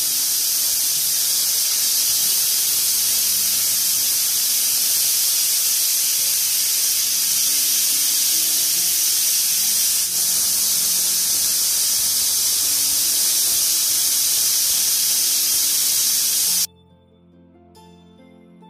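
Pressure cooker venting steam under pressure: a loud, steady hiss that cuts off suddenly near the end, leaving faint background music.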